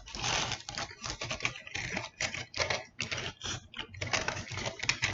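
Aluminium foil wrapper of a burrito crinkling and crackling as it is unwrapped and handled, in irregular crisp bursts several times a second.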